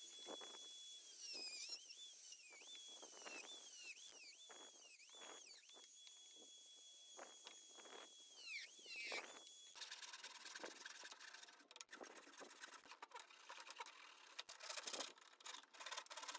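Faint high whine of a Dremel rotary tool on a flex shaft. Its pitch dips and wavers again and again as it cuts into a plastic engine cover. About ten seconds in, it gives way to a series of short handsaw strokes through the plastic.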